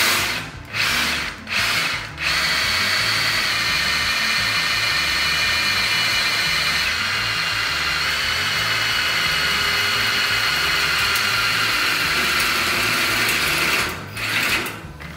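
Einhell 18 V brushless cordless drill in low gear (speed 1) boring a 13 mm high-speed-steel bit straight into thin square steel tubing without a pilot hole. After a couple of seconds it runs steadily for about eleven seconds with a high whine of the bit cutting the steel, then stops near the end.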